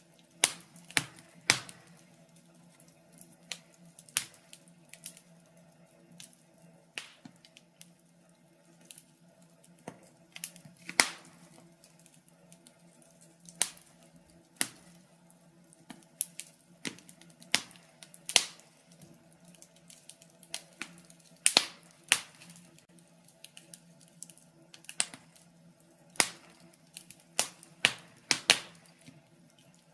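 Wood fire in a fireplace crackling: irregular sharp pops and snaps at uneven intervals, some much louder than others, over a faint steady low hum.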